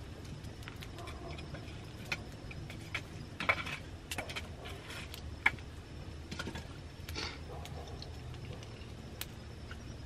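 Open wood fire crackling, with scattered sharp pops and clicks, the loudest about three and a half and five and a half seconds in.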